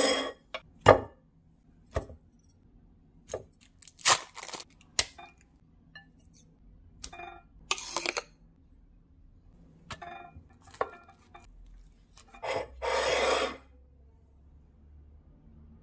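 Kitchen handling sounds: a ceramic plate set down on a wooden table and a metal spoon knocking in a ceramic bowl of mayonnaise, heard as a string of separate sharp knocks and clinks, with a longer rough noise lasting about a second near the end.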